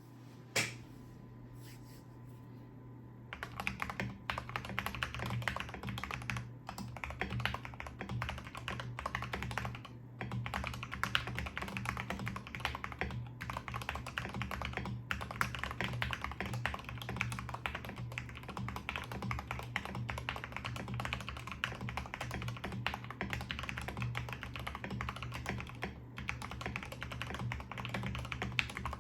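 Typing on a HOMOO KF068 mechanical keyboard with lubed Gateron Ink Black V2 linear switches, Akko OSA double-shot PBT keycaps and tape, foam and Holee mods. One keystroke comes just after the start, and continuous fast typing begins about three seconds in, over a steady low hum.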